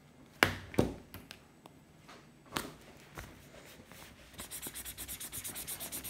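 A few sharp knocks and clicks, the loudest near the start, then a Crayola felt-tip marker scribbling fast back and forth on paper in quick, even strokes as it colours in.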